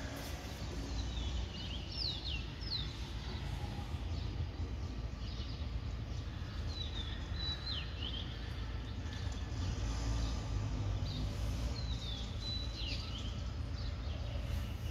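Small birds chirping in several short clusters of quick, high, falling notes over a steady low outdoor rumble.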